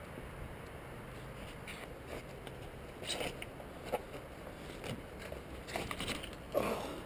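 Irregular scuffs and crunches of footsteps on rocky, gritty ground, starting about three seconds in, over a steady low hum.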